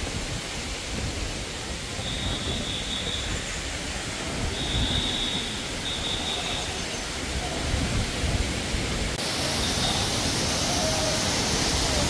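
Steady rush of a mountain stream and waterfall in a rocky gorge, growing louder and brighter about nine seconds in. A few short, high, steady whistles sound in the first half.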